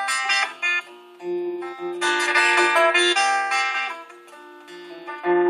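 Acoustic guitar played solo as an instrumental break in a folk song: picked notes, swelling to a fuller, louder passage about two seconds in and easing off before picking up again near the end.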